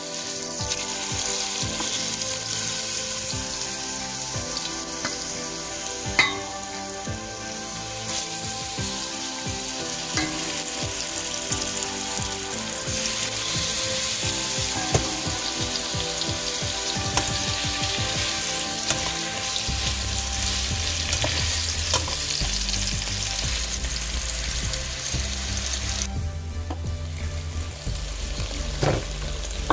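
Seasoned chicken thighs sizzling steadily as they brown in hot olive oil in a pan, with a few sharp clicks now and then.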